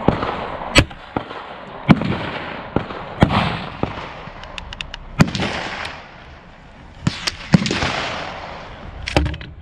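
Gunfire on an outdoor rifle range: sharp single shots at irregular intervals, about one every one to two seconds, some trailing off in a short echo. The shots come from more than one gun along the firing line.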